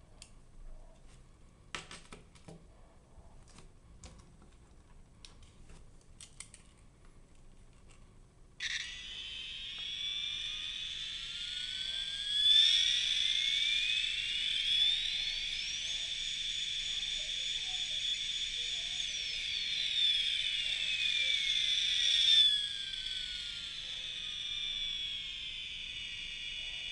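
Battery-operated 1980s F-14 Tomcat jet key chain's electronic sound effect: a high electronic whine that starts suddenly about a third of the way in, sweeps up in pitch, holds, then sweeps back down over several seconds. Before it, light clicks and taps from the plastic toy being handled.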